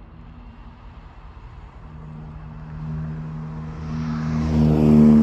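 A diesel locomotive's engine swelling steadily louder over a few seconds as it loads up, with a low hum holding the same pitch and growing louder near the end.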